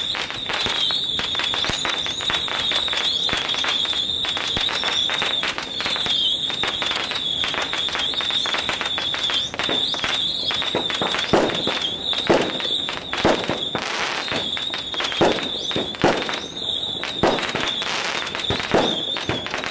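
Strings of firecrackers going off in a dense, continuous crackle, with louder single bangs about once a second in the second half. A steady high whine runs underneath.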